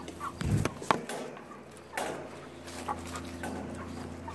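A live chicken caught and held in the hand, struggling: handling thumps and rustles in the first second, a sharp click, and a short louder outburst about two seconds in.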